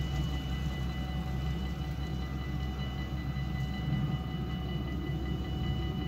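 Railroad crossing warning bells ringing steadily while the barriers lift, cutting off at the very end, over a low continuous rumble.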